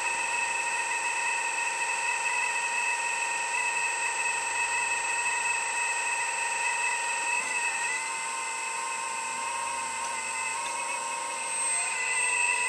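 Hydraulic pump of an Earth Digger 4200 XL RC excavator whining steadily as the arm is worked. The pitch wavers briefly about eight seconds in, and the whine grows louder near the end.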